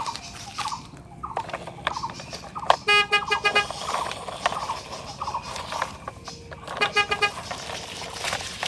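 Electronic toy-vehicle sound effects: short chirping tones with two brief horn-like honks, about 3 and 7 seconds in.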